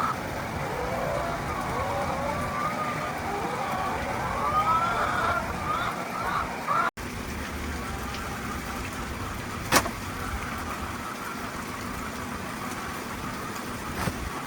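Chickens calling in short rising-and-falling clucks over a steady background noise. The calls stop at an abrupt cut about halfway through, leaving only the steady noise with one sharp click.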